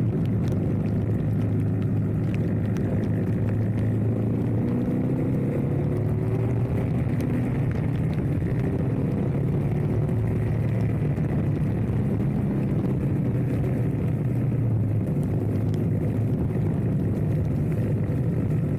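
Motorcycle engine running at a steady cruising speed while riding, with a dense low rushing rumble underneath.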